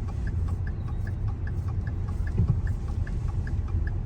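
Inside a moving car: steady road and engine rumble, with the dashboard indicator ticking evenly about two to three times a second. A brief low thump comes a little past halfway.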